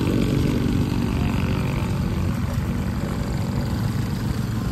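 Steady low rumble of motor vehicles climbing a steep hill: the car's engine and nearby motorcycles, mixed with wind on the microphone.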